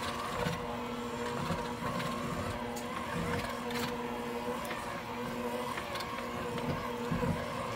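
Electric hand mixer running at a steady speed, its motor giving an even hum with a whine, beaters churning thick cake-mix, butter and egg batter in a ceramic bowl, with a few faint ticks.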